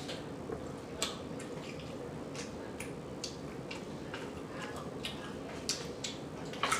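Close-miked eating: wet mouth smacks and clicks of someone chewing food, scattered short soft clicks a second or so apart over a faint steady room hum.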